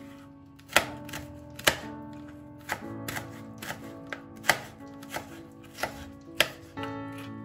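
Kitchen knife cutting through an onion and knocking on a plastic cutting board: sharp, uneven cuts about one every half second to a second, over soft background music.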